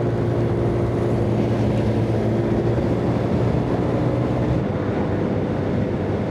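150cc scooter engine running steadily while riding, with a constant low drone, and wind and road noise over it.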